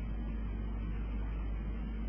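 Steady background noise of the recording: a low hum with an even hiss over it, unchanging throughout.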